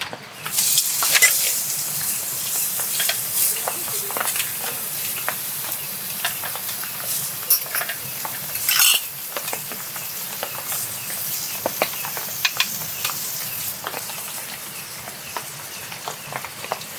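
Meat sizzling as it cooks, a steady frying hiss, with scattered clicks and scrapes of a cooking utensil against the pan.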